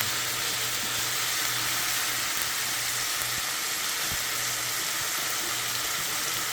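Marinated bulgogi beef frying in canola oil in a hot pan, a steady, even sizzle.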